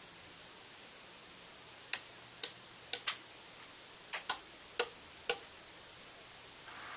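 Eight sharp electrical switching clicks, singly and in quick pairs, from the model railway controller's relays and turnout point motors changing over as the automatic sequence moves to its next step. Near the end a rising rattle begins as an N gauge train starts to roll along the track.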